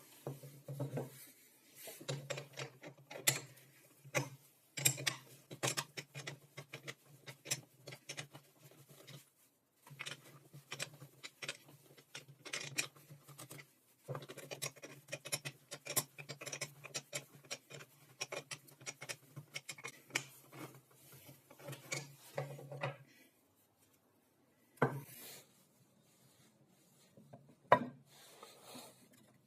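Quiet hand work on a workbench: irregular small clicks, taps and rubbing scrapes over a low steady hum that runs in stretches and stops about three quarters of the way through, followed by a few separate knocks.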